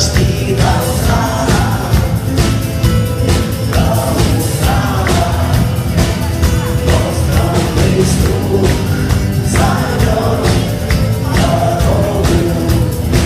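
Music with singing over a steady beat, with a tambourine-like jingle.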